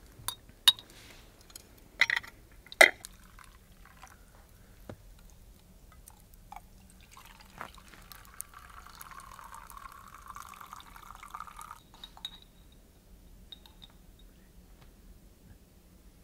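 A metal spoon clinking sharply against a glass jar, four loud clinks, then liquid pouring into a glass for about five seconds, stopping about twelve seconds in.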